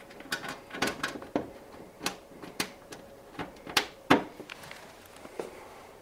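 Scattered light clicks and knocks of screws and tools being handled against a tumble dryer's sheet-metal side panel as the screws are set in, with a sharper knock about four seconds in.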